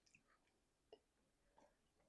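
Near silence with faint chewing of chicken wings: soft wet mouth clicks, the sharpest about a second in.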